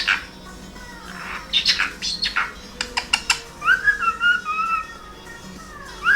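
Cockatiel chirping in short sharp notes, then whistling a warbling phrase about three and a half seconds in.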